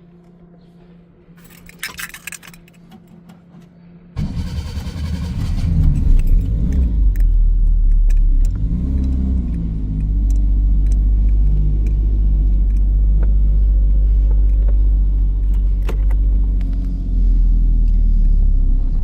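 Keys jangling about two seconds in, then the Zastava 750's small four-cylinder engine comes in suddenly about four seconds in, revs up and down a few times and settles into steady running.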